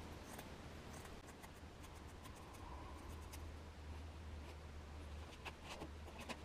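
Scissors snipping through fibreglass mat, with the mat rustling as it is handled: a scatter of faint, short, crisp snips over a low steady hum.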